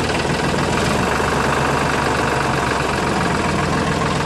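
Tractor engine running steadily: a dubbed engine sound for a toy tractor.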